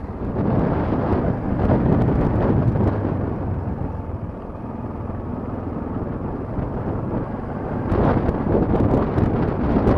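Motorcycle riding a rough, muddy lane, heard from the rider's helmet: a dense rumble of engine, tyres and wind buffeting the microphone, swelling about a second in and again near the end, with a few sharp ticks in the last couple of seconds.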